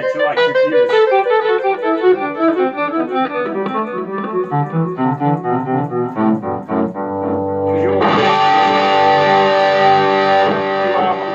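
Electric guitar played through a 15-watt Marshall MG15 combo amp: a quick run of single notes, then about eight seconds in a chord struck and left to ring until near the end.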